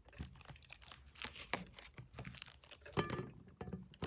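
Irregular rustling and crinkling of plastic packaging as candles are handled and taken from the box, with a sharper plastic clack about three seconds in.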